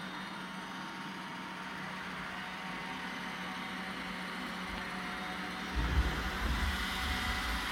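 iRobot Roomba 960 robot vacuum running: a steady, fairly quiet whirr of its motors and brushes with a faint hum. About six seconds in, a few low thumps and rumbles come through.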